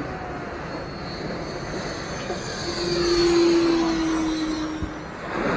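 Dynam Meteor V3 RC jet's 12-blade 70 mm electric ducted fan, driven by a Detrum 2600KV motor, whining as the jet makes a low pass. It grows louder about two seconds in, is loudest around three seconds, then drops in pitch and fades as it goes by.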